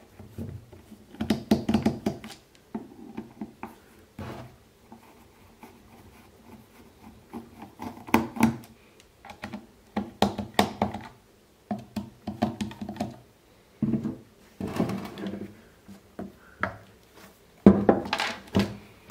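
Scattered clicks, scrapes and knocks of a screwdriver and hands working on the plastic housing of a Dali Katch G2 speaker on a wooden bench, as its screws are taken out. A louder clatter near the end as the speaker is turned over.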